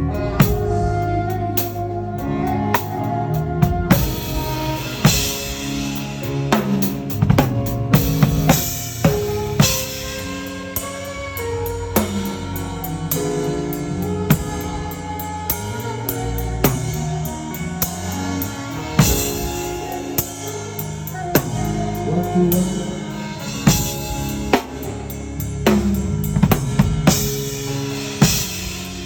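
Music with a drum kit playing, kick and snare hits cutting through over held bass and instrument notes.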